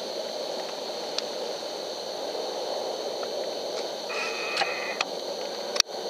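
Steady hiss of electronic noise with a faint high whine, from a thermal rifle scope's recording. A brief higher-pitched sound comes about four seconds in, and a single sharp click near the end.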